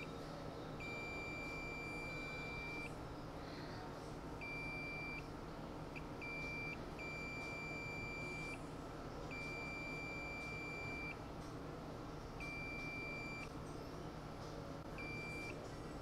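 Digital multimeter's continuity beeper sounding in about nine separate beeps of one steady high tone, some brief and some held for up to two seconds, as the probe touches test points on an iPhone 6S logic board; each beep signals a low-resistance path to the point probed.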